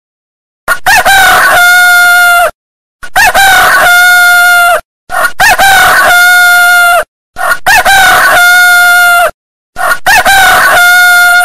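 Rooster crowing five times in a row, about every two and a half seconds. Each crow is a brief rise into a long held note, with dead silence between crows.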